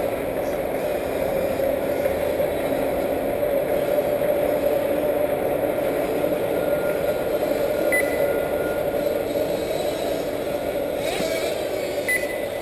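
Several 1/8-scale nitro buggy engines running together, their whine merging into a steady, wavering drone. Short high beeps sound twice near the end.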